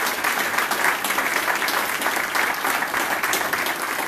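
A roomful of people applauding: many hands clapping in a steady, dense patter.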